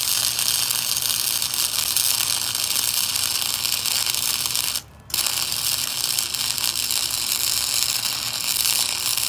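Chicago Electric Flux 125 flux-core wire welder arc crackling and hissing steadily while a bead is run, over a steady low hum. The arc breaks off briefly about five seconds in, then strikes again.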